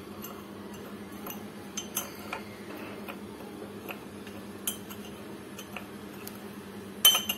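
Metal teaspoon scraping and clinking against a glass cup while stirring dry milk powder, sugar and instant coffee together, with scattered light clinks and a louder clink near the end.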